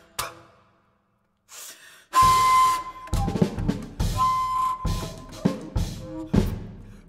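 Bass flute and drum kit playing a contemporary piece: a hit that dies away into a brief silence, then from about two seconds in a loud, breathy held flute tone over sharp, spaced drum strikes, with a second held flute note a couple of seconds later.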